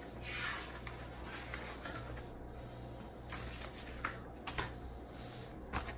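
Faint rustling of paper sheets, a few soft strokes over a steady low hum, turning crisper and louder near the end.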